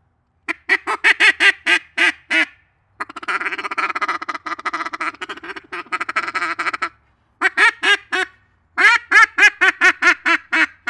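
A homemade duck call blown to imitate a duck: a run of short quacks, then a fast continuous chatter of about four seconds, then two more runs of quacks. This is the first test blow of the newly made call, and it sounds good.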